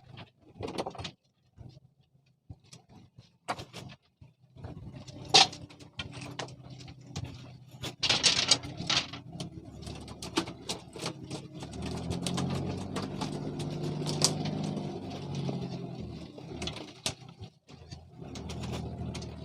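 An engine running with a steady low hum that sets in about four and a half seconds in and grows louder in the middle, with knocks and clatter of handled gear before and over it.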